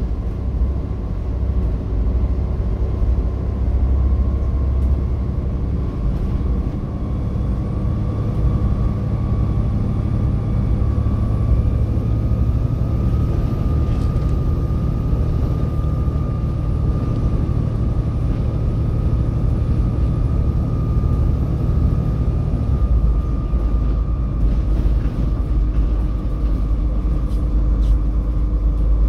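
Volvo B7TL double-decker bus's six-cylinder diesel running under way, a steady rumble with a whine above it. The whine rises a little about a third of the way through and falls back, and the engine's drone drops lower about three-quarters of the way through.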